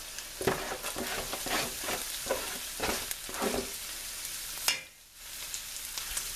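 Onions and garlic frying in hot oil, sizzling, while a spoon stirs and scrapes the pan. A sharp knock comes near the end, after which the sizzle briefly drops away before returning.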